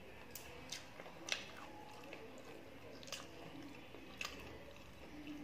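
Close-up chewing of a mouthful of food with the mouth closed, soft and wet, with a few sharp clicks from the mouth or the fingers on the metal plate, the loudest about a second in.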